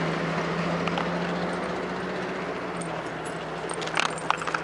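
Street traffic: a car's engine hums at a steady pitch and slowly fades. A few light metallic clicks and jingles come near the end.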